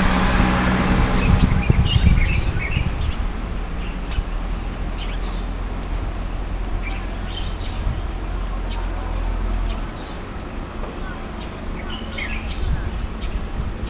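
Birds chirping in short, scattered calls over a steady low hum and background noise, picked up by a small high-sensitivity monitoring microphone that cuts off the top end. The hum drops away about ten seconds in.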